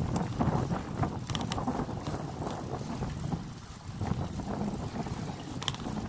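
Wind buffeting the microphone of a camera carried on a moving bicycle, a low uneven rumble, with a few sharp ticks or rattles.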